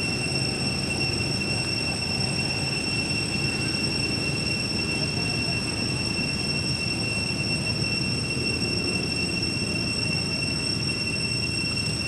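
Steady ambient rumble with a constant high-pitched whine over it, unchanging throughout.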